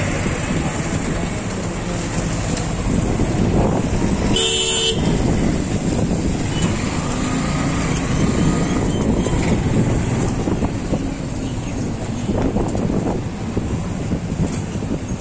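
Steady engine and road noise of a motorbike being ridden slowly. A vehicle horn toots once for under a second, about four seconds in.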